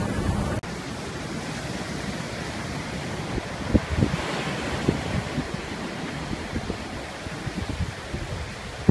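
Wind rumbling on the microphone, giving way about half a second in to a steady rushing of wind and surf, broken by a few light knocks.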